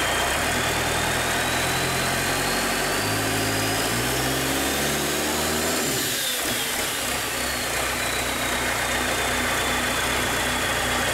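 Cummins 4BT four-cylinder turbo diesel running on a stand. Its revs climb over about five seconds, drop back about six seconds in, and it settles into a steady idle. A faint high whine rises with the revs and fades after.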